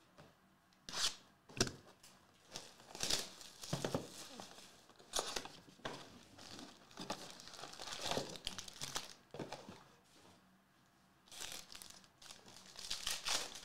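Wrapping on a Panini Prizm soccer card box being torn open, then the foil card packs inside crinkling as they are pulled out and handled. The rustles come in short irregular bursts, with a brief lull about ten seconds in.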